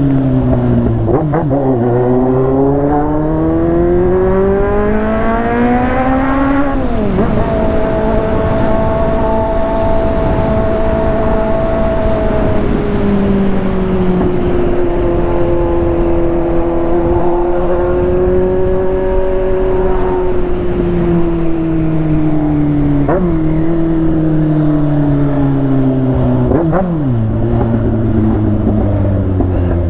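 Motorcycle engine under way, revving up with its pitch rising for several seconds, then dropping sharply at a gear change about seven seconds in. It then holds a steady pitch that slowly falls as it eases off, with quick dips and recoveries near the end.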